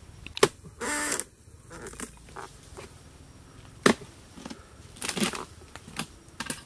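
Sharp chopping strikes of a dodos, a harvesting chisel on a long pole, jabbed into the base of an oil palm beside a fruit bunch. The two hardest strikes come about half a second in and about four seconds in, with lighter ones near the end and short scraping, rustling noises between them.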